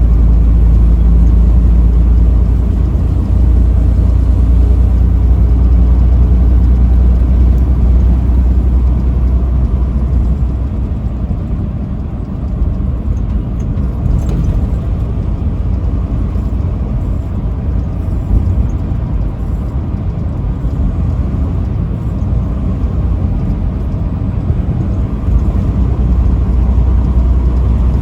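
Semi truck driving on a highway: a steady low engine and road rumble, easing off somewhat in the middle and building up again near the end.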